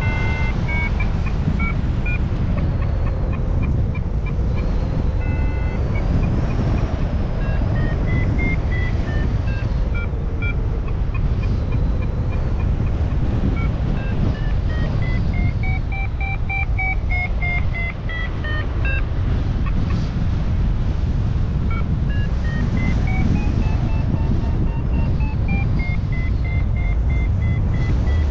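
XC Tracer Maxx variometer beeping its climb tone: trains of short beeps whose pitch rises and falls in slow sweeps of several seconds as the rate of climb changes in lift. Loud wind rush on the microphone runs underneath.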